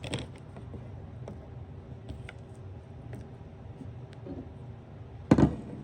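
Light, scattered clicks and taps of small items being handled, over a faint steady hum, with one loud thud near the end.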